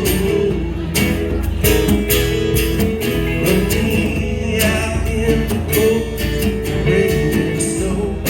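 Live band music: guitars strummed in a steady rhythm, with a little singing.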